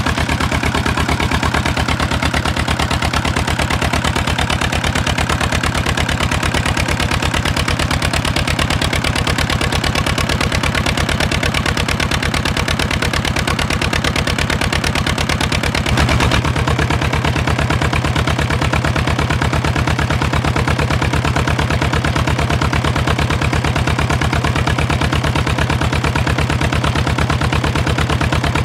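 Old 25 hp 'Peter' diesel engine running steadily with an even firing beat. About halfway through, the sound shifts suddenly to a fuller, lower tone.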